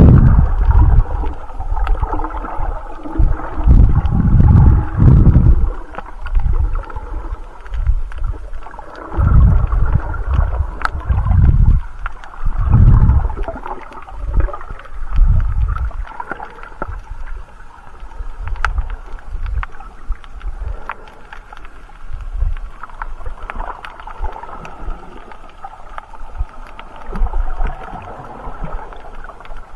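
Muffled underwater sound of water surging and rumbling against a snorkeller's moving camera, in uneven low pulses that are strongest in the first half. Faint sharp clicks sound throughout.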